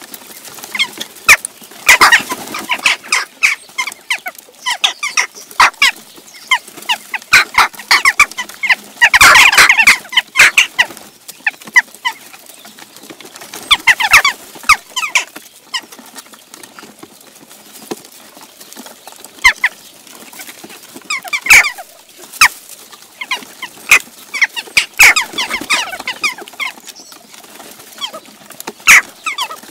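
A flock of western jackdaws calling in a constant clamour of short, sharp calls, with loud flurries of squabbling as birds fight over the food and wings flap. The calling is thickest about nine seconds in and flares up again several times.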